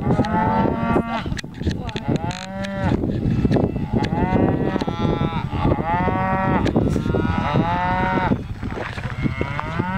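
Herd of cows mooing, about six drawn-out calls in a row, some from different animals overlapping one another.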